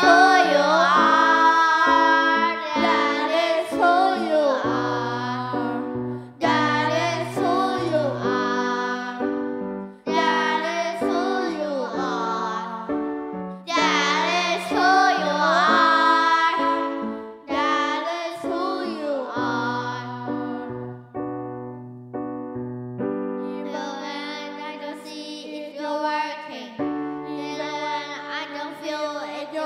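Worship song sung in phrases of a few seconds over a keyboard accompaniment of held chords and bass notes.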